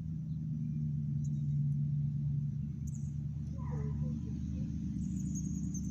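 Steady low drone of an engine or motor, a little louder in the first two seconds, with a few faint chirps about midway.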